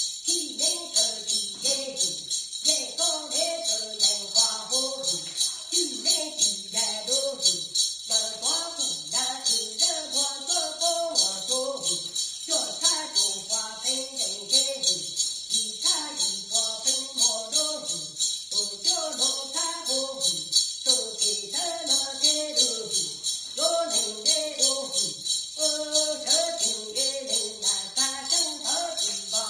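Hmong shaman's metal jingle rattle shaken in a fast, even beat of about three strokes a second, over the shaman's steady trance chanting.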